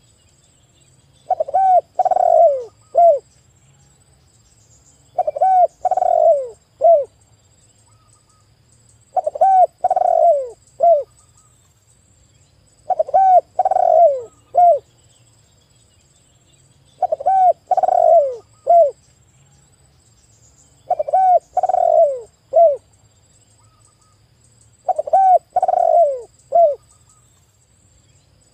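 Spotted dove (tekukur) cooing in repeated phrases, one about every four seconds. Each phrase is a run of several falling coos ending in a short separate note.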